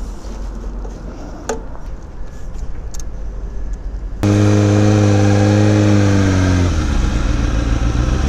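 A click as the fuel-filler cap of a 2006 Kawasaki ZX-6R 636 is shut, then about four seconds in its inline-four engine fires up suddenly, runs at a steady fast idle and drops to a lower idle near the end.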